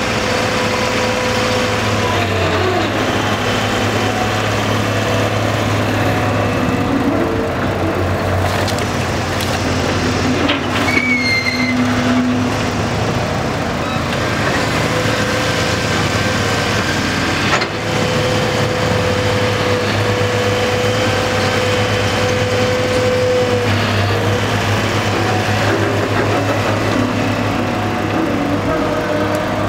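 Crawler hydraulic excavator's diesel engine running steadily under load while it digs and swings crushed rock, with a hydraulic whine that comes and goes. A single sharp knock about 18 seconds in.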